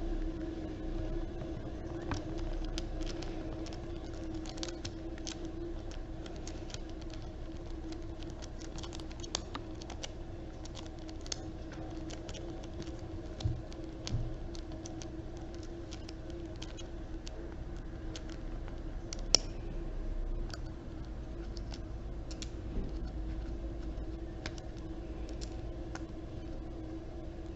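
Small travel dominoes being handled: many light, irregular clicks and clatters, with a few sharper taps, over a steady low hum.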